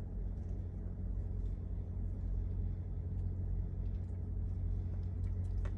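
Steady low room hum, with a few faint clicks near the end as plastic RC suspension parts are handled.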